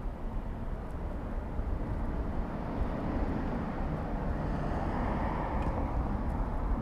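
A motor vehicle passing, its engine and tyre noise swelling through the middle and easing near the end, over a steady low wind rumble on the microphone of a moving bicycle.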